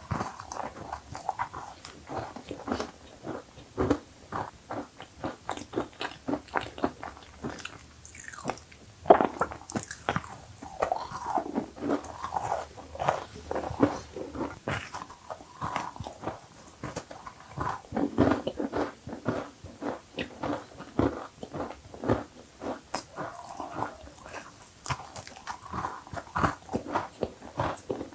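A person biting and chewing cookies: dense, irregular crunching with wet mouth sounds, going on without pause.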